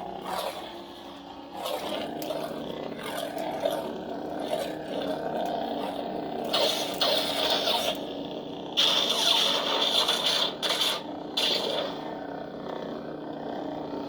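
A lightsaber hilt's soundboard plays a steady blade hum through its small speaker. Louder hissing effect sounds come in about halfway through and again a few seconds later.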